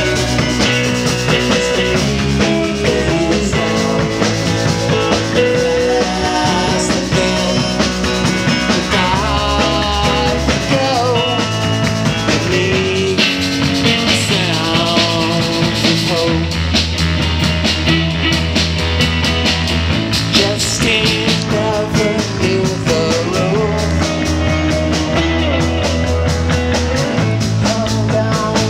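Live rock band playing: electric guitar, bass guitar, drum kit and a Nord Stage keyboard, with bending lead lines over a steady bass and drum beat.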